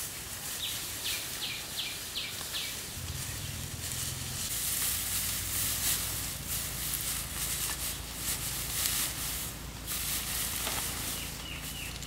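Dry straw rustling and crackling as handfuls are pressed and tucked into a bamboo frame. About a second in, a bird gives a quick series of about six short chirps. From about three seconds in, a low steady hum runs underneath.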